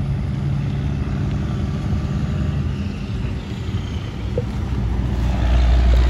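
Road traffic: a steady engine hum with passing-car noise, then from about five seconds in a louder low rumble builds as a tractor-trailer hauling a shipping container and an SUV pass close by.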